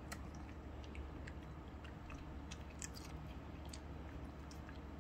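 A Shih Tzu chewing a dog treat: small, irregular crunching clicks throughout.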